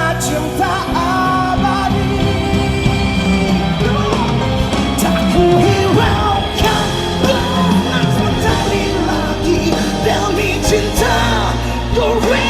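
Male vocals singing a Malay-language pop ballad over band accompaniment.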